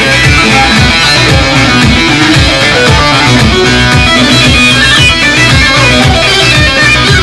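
Loud music: a plucked string instrument over a steady beat.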